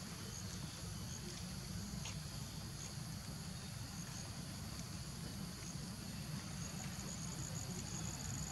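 Steady high-pitched insect chorus, growing a little louder near the end, over a low outdoor rumble.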